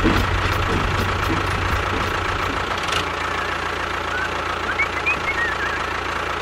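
Small electric motor running with a steady hum. Its low part drops about halfway through, and high, wavering chirps come in over it in the second half.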